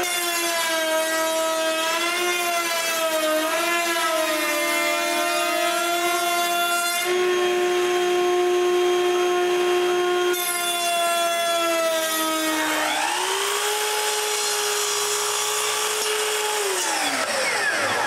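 Router in a router table running steadily with a triangular-profile bit, its whine dipping slightly in pitch as plywood is fed past the bit. About 13 s in, a sliding miter saw spins up, runs at a steady pitch, then winds down with a falling whine near the end.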